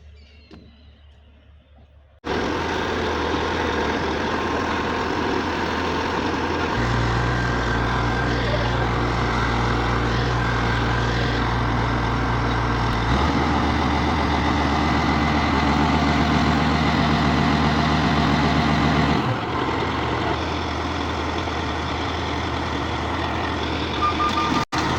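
Wirtgen W 2000 road milling machine working: a loud, steady heavy-diesel drone with cutting and conveyor noise, which starts abruptly about two seconds in after a quieter stretch. Its deep hum grows heavier for several seconds near the middle and then eases.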